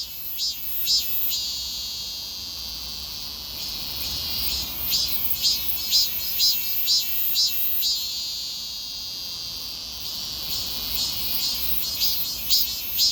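A cicada singing a high-pitched, pulsing call of about two pulses a second. Twice it runs the pulses together into a long continuous buzz: about a second and a half in, and again about eight seconds in.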